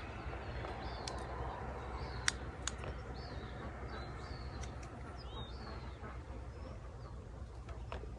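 Small birds chirping on and off over a steady low rumble of wind on the microphone, with a few sharp clicks, the loudest a little over two seconds in, from a small air-rifle magazine and pellets being handled.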